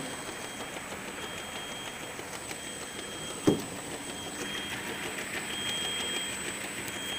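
Automatic bottle labeling machine running steadily, with faint high whines, and a single sharp knock about halfway through.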